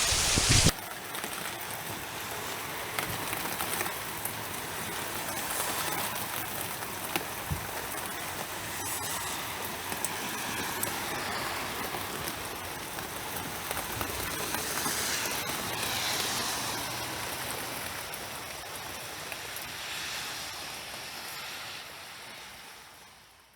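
Heavy rain falling in a windstorm: a loud downpour for the first split second, then a steadier, quieter rain hiss with scattered drop ticks that fades out at the end.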